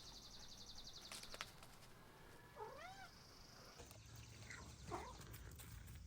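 A cat meowing faintly, twice: a rising-then-falling meow about halfway through and a weaker one a couple of seconds later.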